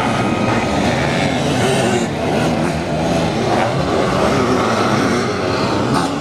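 Several sidecar motocross outfits' engines racing together, their revs rising and falling as the riders accelerate and shift.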